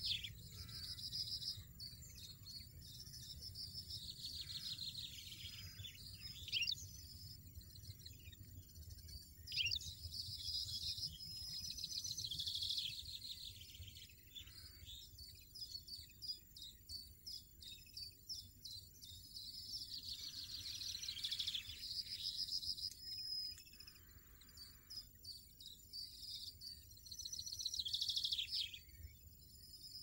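European goldfinch nestlings begging at the nest: bouts of rapid, high-pitched chirping that come and go several times, each lasting a second or few.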